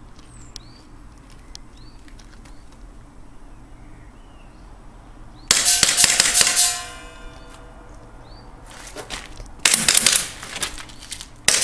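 Tokyo Marui Glock 18C gas-blowback airsoft pistol firing rapid full-auto bursts, each shot a sharp metallic clack of the slide cycling: a burst of about a second midway, a shorter one about four seconds later, and another just starting at the very end.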